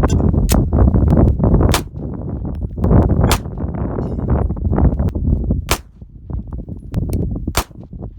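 Handgun shots fired at a steel target: about five sharp reports at uneven spacing, with fainter clicks between them, over heavy wind noise on the microphone.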